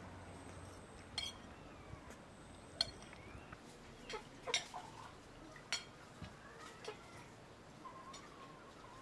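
Spoons, plates and cups clinking now and then as a meal is eaten, about six sharp separate clinks. Faint bird calls behind them in the second half.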